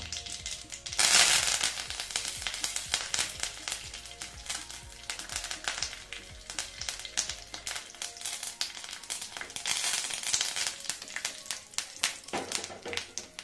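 Curry leaves dropped into hot oil with whole mustard seeds and a dried red chilli: a loud burst of sizzling about a second in, then steady crackling and popping as the tempering fries, flaring up again a couple of times near the end.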